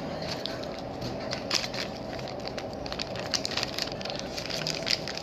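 Handling noises of a piece of gold jewellery and its packaging: scattered sharp clicks and light crackling, over a steady background hum.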